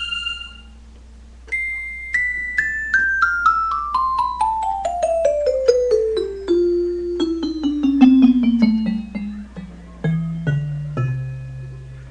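Digital piano playing a steady descending run of single notes, stepping down from the high register to the bass about three or four notes a second, with the last few low notes held longer. The run begins after a short pause about a second and a half in.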